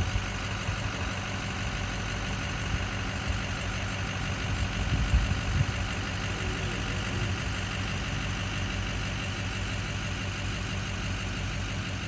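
Open-air tour bus engine running with a steady low drone, heard from aboard the bus.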